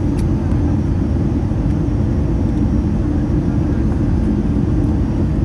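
Steady low rumble of engine and airflow noise inside the passenger cabin of an Airbus A319 with CFM56 engines, during the approach and landing phase.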